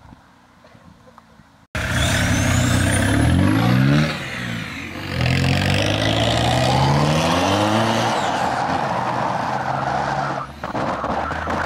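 Volkswagen Jetta four-cylinder turbodiesel with a straight-piped exhaust, accelerating hard: after a faint first couple of seconds the engine cuts in loud and revs up twice with a drop between, a gear change, then runs on steadily. A run of sharp clicks near the end.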